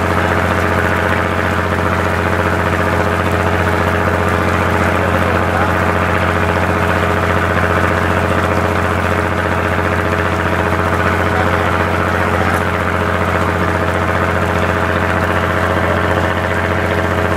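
A fishing boat's engine running steadily with an even, unchanging hum.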